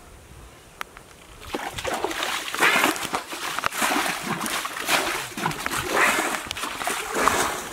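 Muddy water splashing and sloshing in repeated scoops, about one a second, as it is bailed with a metal bowl; the splashing starts about one and a half seconds in.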